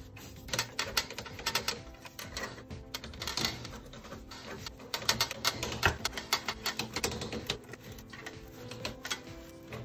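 Stock Kawasaki Z900 muffler being wiggled and pulled off by hand: irregular runs of metallic clicks and knocks, thickest in two spells, in the first half and around the middle.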